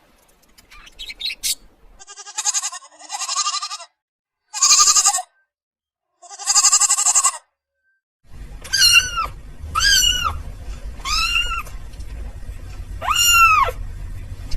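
A goat bleating four times with a quavering voice, then, after a short gap, a cat meowing four times with drawn-out, arching meows.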